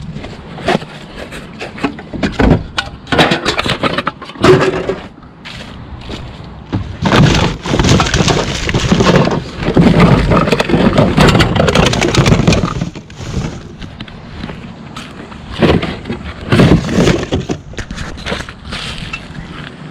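Rummaging through a pile of discarded household items: repeated knocks, clatters and crunching as things are moved and handled, busiest and loudest in the middle.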